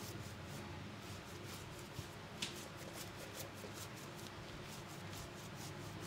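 Fingertips rubbing and scratching through wet hair on the scalp during a head massage: a quiet, irregular run of short scratchy rubs, with one sharper crackle about two and a half seconds in.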